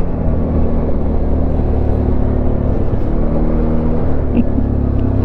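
An ATV's engine running under way, a steady low drone whose pitch dips slightly midway and picks up again as the throttle changes.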